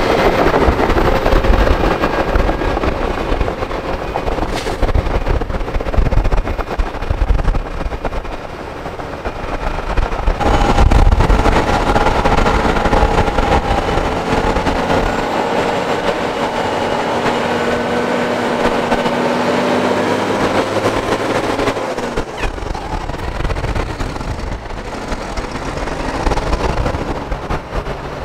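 Heavy diesel earthmoving machinery running: excavator and dump truck engines working. About ten seconds in, the sound changes to a steadier engine drone whose pitch slowly climbs.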